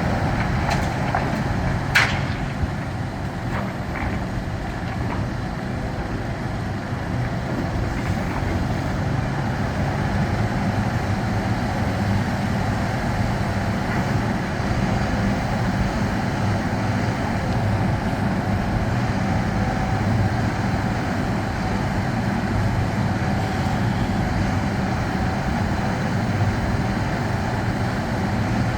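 Heavy diesel engine running steadily, with a sharp knock about two seconds in and a few lighter knocks around it.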